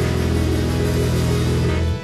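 A band's closing chord, held with drums and cymbals ringing, played through a television speaker; it stops sharply near the end, leaving a short fading ring as the song ends.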